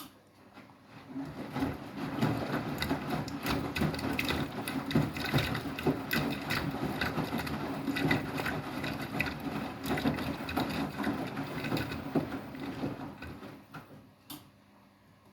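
Beko WTK104121W washing machine running with a busy rattling, clicking mechanical sound that starts about a second in, runs for about twelve seconds and fades out, followed by a single sharp click near the end.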